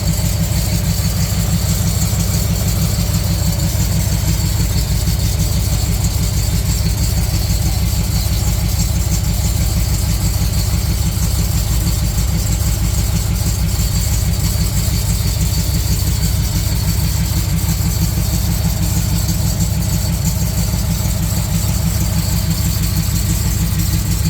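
1976 Jeep CJ7's AMC 304 V8, fitted with Hedman headers, idling steadily with a deep, even exhaust pulse.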